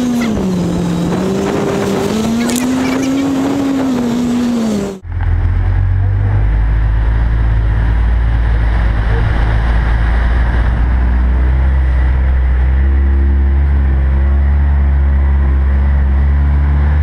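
ATV engine running on a dirt track, its pitch rising and falling with the throttle. After a brief break about five seconds in, it settles into a steady, deeper drone.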